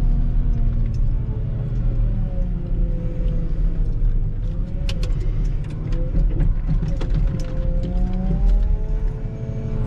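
Volvo L60H wheel loader's diesel engine running, its pitch drifting up and down, with scattered sharp knocks and clatters.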